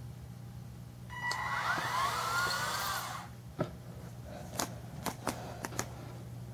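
Small four-wheel-drive robot's DC gear motors whirring for about two seconds, starting about a second in, with a whine that rises and falls as the speed changes, then stopping. A few sharp clicks follow.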